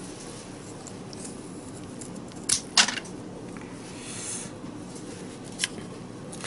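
Small spring-loaded pruning shears snipping a thin twig: two sharp snips in quick succession a couple of seconds in, then a short rustle of handling and a fainter click near the end.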